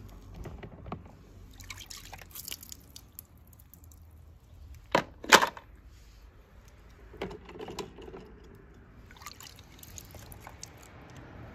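Water sloshing and dripping as a hand fishes small die-cast toy cars out of a plastic tub of water, with scattered small clicks and two sharp, louder hits about five seconds in.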